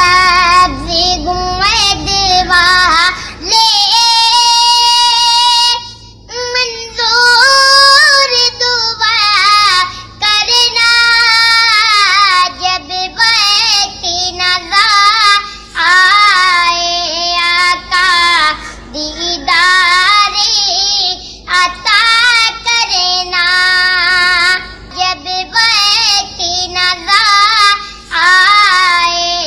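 A young boy singing a naat, a devotional song in praise of the Prophet Muhammad, in a high, clear voice. He sings long held notes and ornamented turns, pausing only briefly for breath between phrases.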